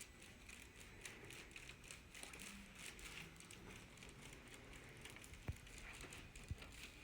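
Faint rustling of a person shifting on a treatment table, with two sharp clicks about a second apart near the end.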